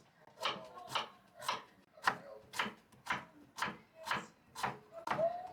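Steady rhythmic strikes of a kitchen utensil on food, about two a second, each a sharp knock with a brief ringing tone.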